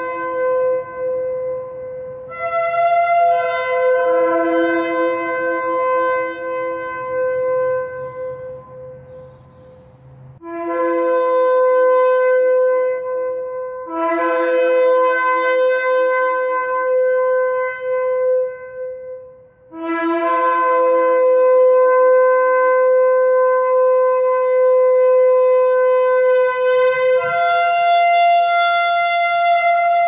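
Shofar sounded in a series of about four long sustained blasts, each several seconds long with short breaks between. The tone steps between a lower and a higher note, and the last blast jumps up to a higher note near the end.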